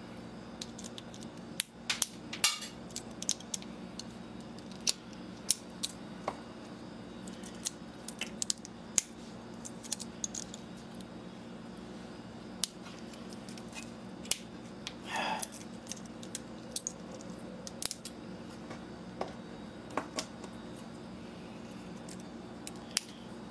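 Irregular sharp clicks and snips of hand tools on the small metal and plastic parts of a camcorder charger being taken apart, over a low steady hum.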